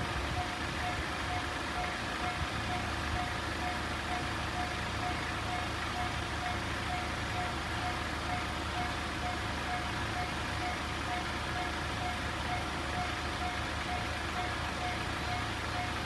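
Japanese railway level-crossing warning bell, the JR standard electronic tone, ringing over and over at a steady pitch, about three dings a second, while the crossing is closed.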